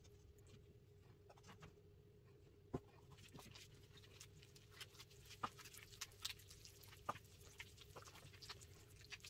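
Faint squelching and small wet clicks of a gloved hand squeezing and kneading soft butter-and-yogurt dough with flour in a bowl, over a faint steady hum.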